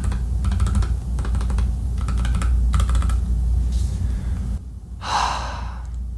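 Typing on a Nuphy Air 75 low-profile mechanical keyboard, the keys clicking in quick runs for about four and a half seconds. A short breathy rush follows about five seconds in.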